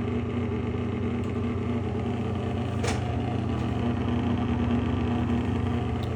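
Old bathroom exhaust fan running with a loud, steady, snoring hum, with one brief click about halfway through.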